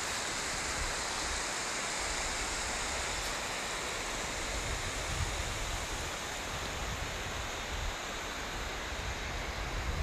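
Mountain stream running over rocks between snowbanks, a steady rush of flowing water, with occasional low wind rumble on the microphone.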